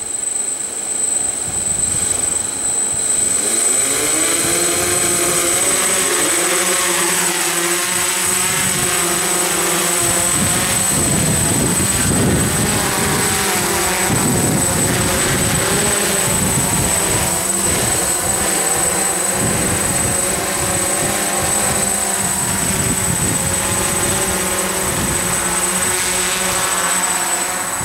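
DJI F550 hexacopter's six electric motors and propellers spooling up for takeoff, a rising whine over the first few seconds, then a steady buzzing drone with a slightly wavering pitch as it hovers. A thin, steady high tone runs under it.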